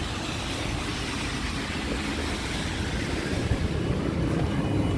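City street traffic: a steady rushing noise with a low rumble from vehicles going by.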